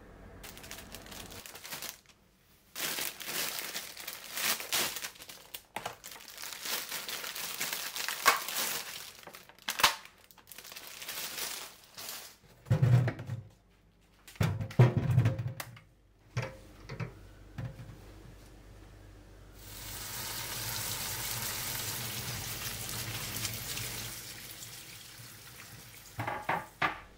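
Kitchen prep sounds: mushrooms handled in a colander in a stainless steel sink, with rustling, a few knocks and a stretch of running tap water. Near the end a wooden chopping board is set down on the counter with a couple of clicks.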